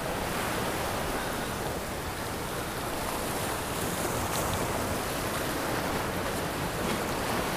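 Surf washing steadily against the rocks of a jetty, an even hiss without breaks.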